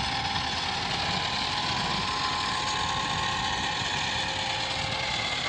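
Massey Ferguson 385 tractor's diesel engine running steadily while hauling a heavily loaded sugarcane trolley, with a rapid low firing beat under a steady whine.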